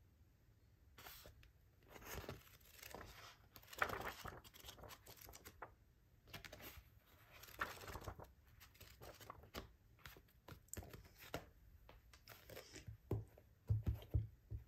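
Pages of a paperback manga volume being flipped and riffled by hand, a run of irregular papery rustles. Shortly before the end the book is laid down on a desk with a few thumps.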